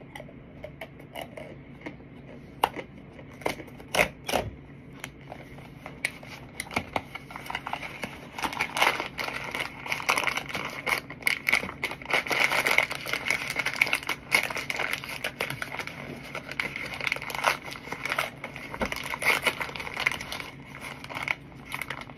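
Cardboard box of Argo corn starch being torn open by hand: a few sharp snaps of the cardboard in the first seconds, then a long stretch of paper and cardboard crinkling and tearing.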